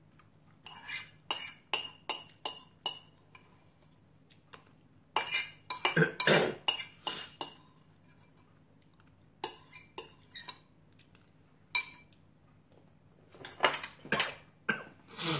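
Metal spoon clinking against a ceramic bowl of ramen as it stirs and scoops. The clinks come in irregular clusters of quick, ringing taps, with short pauses in between.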